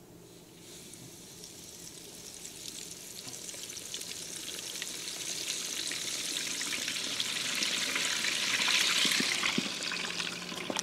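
Flour-dredged chicken wings sizzling and crackling in deep-fryer oil at 375 °F as the wire basket is slowly lowered in. The sizzle starts about half a second in and builds steadily as more of the wings go under, loudest near the end.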